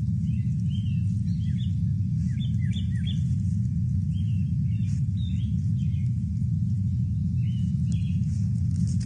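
Wild birds chirping in short, scattered calls, many falling slightly in pitch, over a steady low rumble that is the loudest sound throughout.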